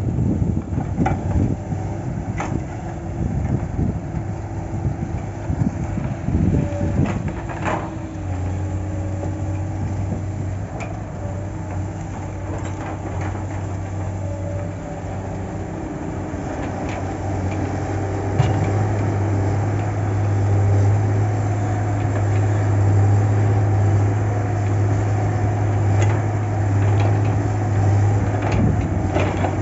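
Diesel engine of a log-loading machine running steadily, its low hum growing louder about eight seconds in and again just before the twenty-second mark. Occasional sharp knocks sound over it.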